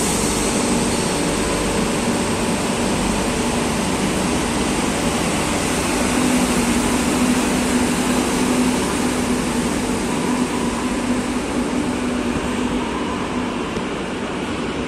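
Madrid Metro series 2000A electric train pulling out of the station, with a steady motor hum and wheel noise on the rails. It grows louder about six seconds in, then fades toward the end as the train moves away.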